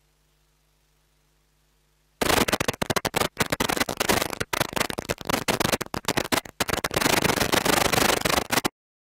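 Near silence with a faint low hum, then about two seconds in a loud, ragged crackling noise with many short dropouts that cuts off to dead silence near the end.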